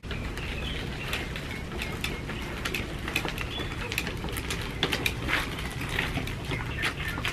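Wheelchair wheels rolling over gritty, gravel-strewn pavement as it is pushed, making a dense run of irregular small crunches and clicks over a steady low rumble.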